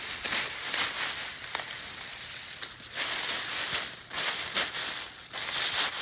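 Grass and leafy undergrowth rustling in uneven swells of hiss, as someone moves through it and brushes against the plants.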